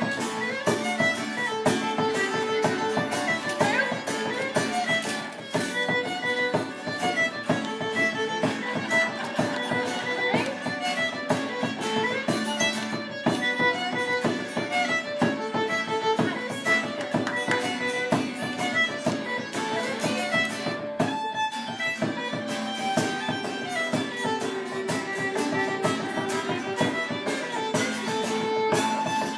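Live traditional dance tune played on fiddle, with guitar and a frame drum keeping a steady, quick beat.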